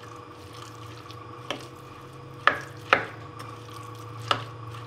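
A white ceramic spoon mixing minced chicken stuffing in a ceramic bowl, with four sharp clinks of spoon against bowl over a steady low hum.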